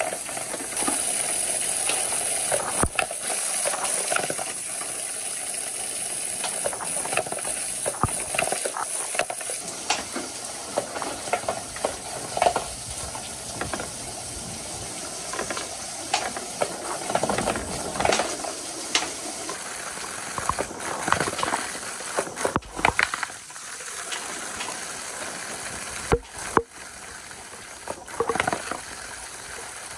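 Water rushing down the rain-gutter channels of a water marble run, with a high spray hiss for about the first ten seconds, and wooden balls knocking and clattering along the gutters throughout.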